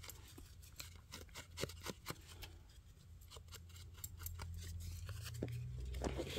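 Foam ink blending tool dabbed and rubbed against embossed card: a run of quick, soft, scratchy taps, dense at first and thinning out after about two seconds, over a steady low hum.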